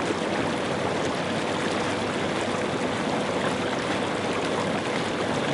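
Inflatable hot tub's air-bubble jets churning the water: a steady, even rush of bubbling, with a faint steady hum underneath.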